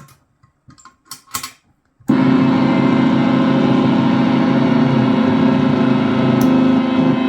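A few scattered clicks and knocks, then about two seconds in the La Parka noise drone instrument starts abruptly into a loud, dense, steady drone with a strong low hum and a buzzing wash of tones above it.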